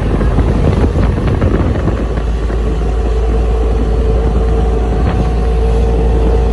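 Motorboat engine running steadily at speed while towing a banana boat, with a constant hum and low rumble.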